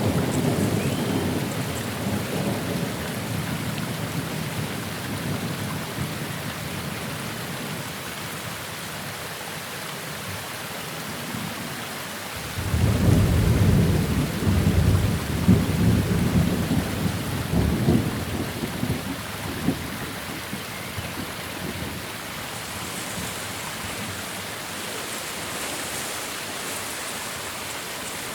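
Steady rain with thunder. A rumble fades away over the first several seconds, then a new peal of thunder breaks about twelve seconds in and rumbles for several seconds before dying away.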